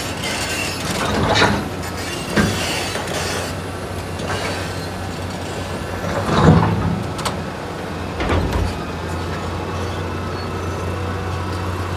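Liebherr 962 excavator's diesel engine running steadily as its hydraulic boom and bucket are moved, with a few short clunks and surges, the loudest about six and a half seconds in.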